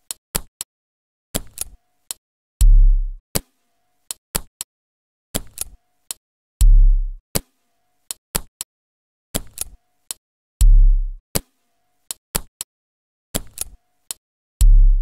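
Sparse electronic music beat: a deep booming kick drum about every four seconds, with short sharp clicks in between.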